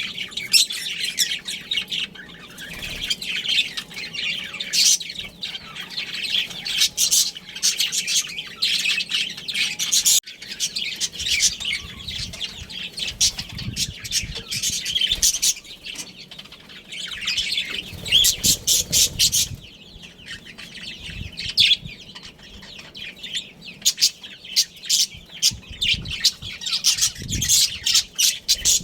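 A group of budgerigars chattering and chirping: fast, continuous warbling chirps broken by short squawks.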